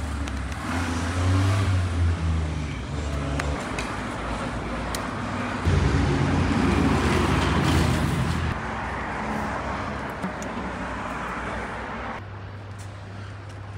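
Street traffic: car engines running and passing close by, loudest at around two seconds in and again from about six to eight and a half seconds in.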